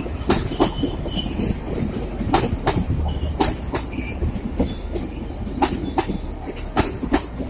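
Passenger train coaches rolling past at low speed: a steady low rumble, with wheels clacking over the rail joints in close pairs as each bogie crosses.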